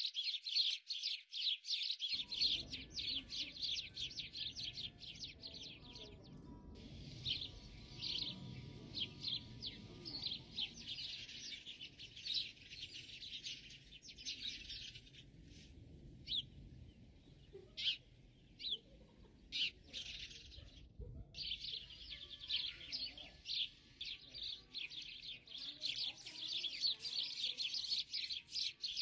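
Many small birds chirping in a dense, rapid chatter. The chatter thins to scattered chirps for a few seconds past the middle, stops briefly, then picks up thick again.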